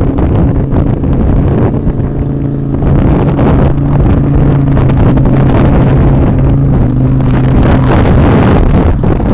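The Toyota Tacoma rock crawler's 2.4-litre four-cylinder engine running hard under load as the truck crawls up a steep wall, holding a steady pitch for most of the climb before breaking up near the end, with wind noise on the microphone.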